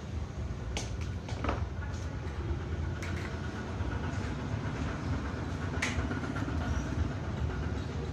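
A few light clicks and knocks as hand tools and a long aluminium straightedge are handled on a glass sheet, over a steady low rumble. The sharpest click comes about six seconds in.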